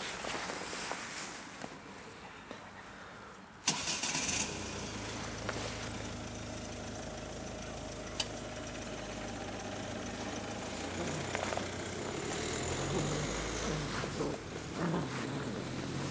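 A vehicle engine starts with a sudden burst about four seconds in, then runs at a steady idle.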